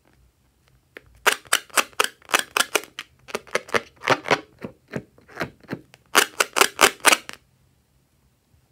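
A filled latex balloon squeezed and rubbed in the hands: a rapid series of sharp rubbery crackling strokes, about four or five a second, in three runs, stopping about seven seconds in.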